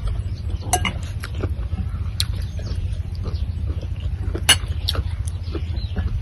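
Eating at a table: chewing and small scattered clicks of spoons and fingers against glass bowls, plates and a metal tray, with one sharper clink about four and a half seconds in, over a steady low rumble.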